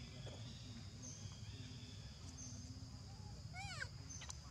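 A young macaque gives a short high-pitched squeal that falls in pitch, about three and a half seconds in, over a steady high drone of insects.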